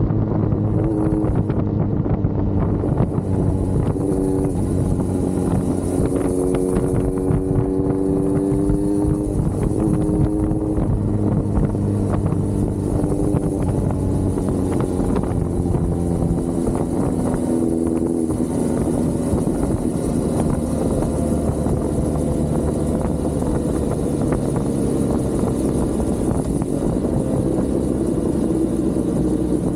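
Kawasaki Z900's inline-four engine running under way at speed. Its pitch climbs and then drops sharply at gear changes, about ten seconds in and again a little before halfway, over steady wind and road noise.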